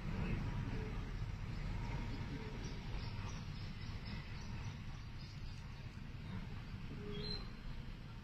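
Outdoor background noise: a steady low rumble with faint scattered chirps, and a short high chirp about seven seconds in.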